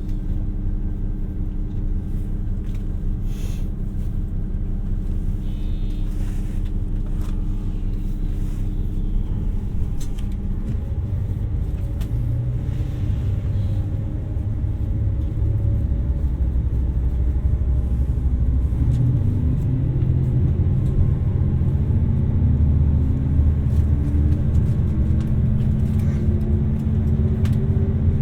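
Diesel engine of a 2700-series limited express railcar heard from inside the passenger cabin, a steady low running sound that grows louder about halfway through as the engine works harder, its note climbing steadily in the last part as the train gathers speed.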